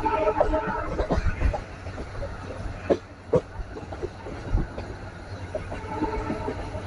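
Passenger train running on the rails: a steady low rumble, with a few sharp wheel clicks over the rail joints.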